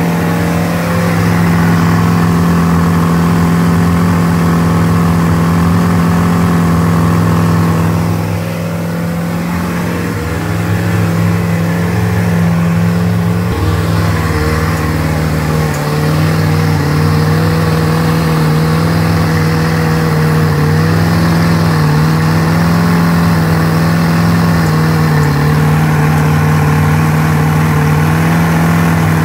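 MerCruiser 350 TBI (5.7-litre V8) marine engine running loudly and steadily during a fuel pressure test. About halfway through, its note drops slightly and turns uneven, with small dips. The engine is suspected of low fuel pressure, with the gauge sagging to about 27 psi when it runs worse.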